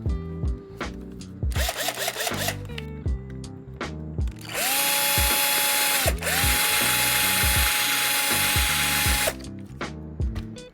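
A small handheld power drill spins up and runs for about a second and a half, stops for a moment, then runs again for about three seconds, its pitch rising as it starts. This is typical of drilling out the base rivets of a diecast toy truck to take it apart for a wheel swap. Background music with a steady beat plays throughout.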